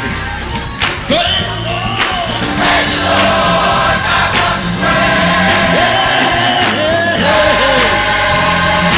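Church gospel choir singing a praise song with band accompaniment, sustained voices over steady bass and drums.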